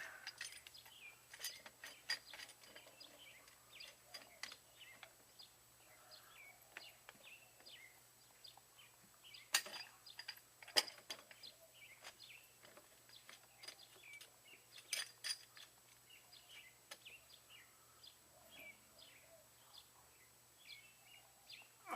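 Faint birds chirping on and off, with a few sharp clicks: two close together near the middle and another a few seconds later.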